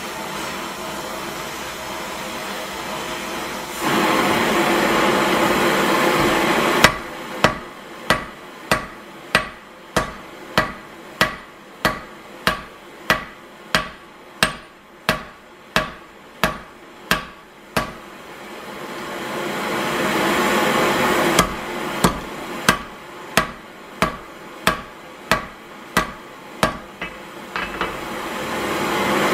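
Hand hammer forging a red-hot iron bar on an anvil: two runs of steady, evenly spaced blows, about one and a half a second, each ringing briefly. Between the runs, and at the start, the steady hiss of the gas torch used to heat the bar.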